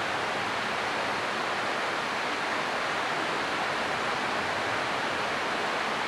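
Steady, even hiss of background noise, with no bell, voice or other sound standing out.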